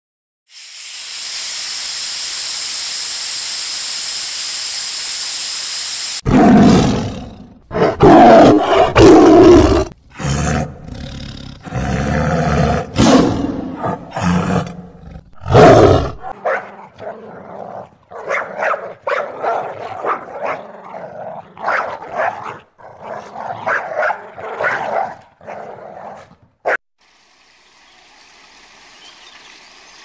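A steady hiss for about six seconds, then a young tiger roaring and growling loudly in a run of calls. Shorter, quieter calls follow, and faint water noise comes in near the end.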